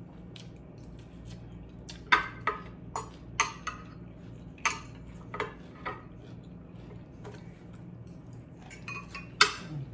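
Metal fork clinking and scraping against a glass bowl as the last food is scooped out. About ten short, sharp clinks come mostly between two and six seconds in, with one louder clink near the end.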